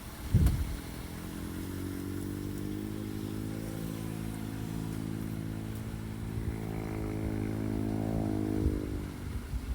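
A vehicle engine pulling under load, its pitch climbing steadily for several seconds and then falling off near the end, after a sharp thump about half a second in.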